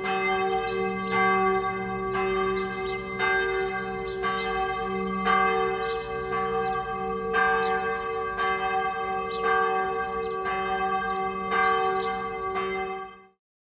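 A single church bell tolling, struck about once a second, each stroke ringing on into the next. It cuts off suddenly near the end.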